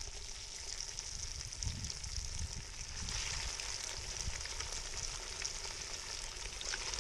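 Battered, chip-crumbed golden perch fillets frying in hot oil: a steady sizzle with fine crackling.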